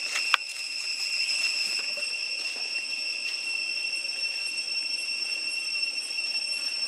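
Steady, high-pitched insect drone, with one sharp click about half a second in.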